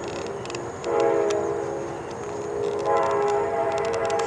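Train horn sounding in two long blasts, a steady chord of several notes, the first starting about a second in and the second near three seconds, with faint clicking above it.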